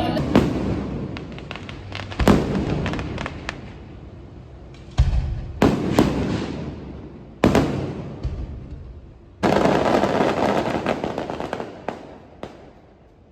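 Fireworks going off. There are several separate booming bursts, each fading away, and most of them come in a cluster a few seconds in. Near the end a dense crackling volley dies away.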